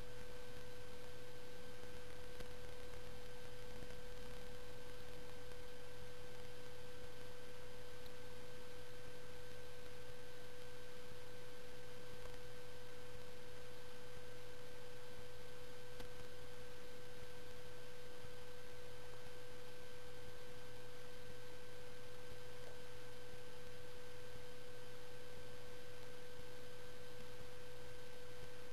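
A steady, unwavering tone at one pitch, with a fainter higher overtone and a low hum beneath it over a constant hiss.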